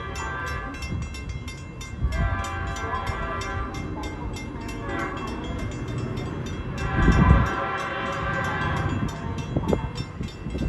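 Approaching train's horn sounding the grade-crossing signal: two long blasts, a short one and a final long one. Crossing-signal bells ring rapidly throughout.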